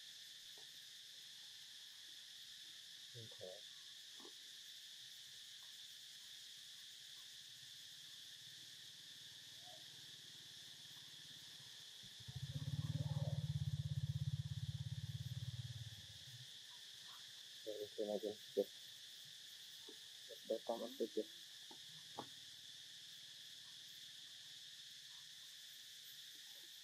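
Steady high-pitched insect drone, like crickets, with short pitched cries twice in the second half. A low rumble lasting about four seconds in the middle is the loudest sound.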